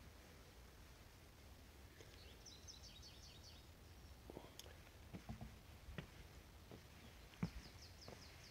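Quiet woodland with a small bird's quick run of high chirps about two seconds in, and soft footsteps knocking on a wooden plank boardwalk through the second half.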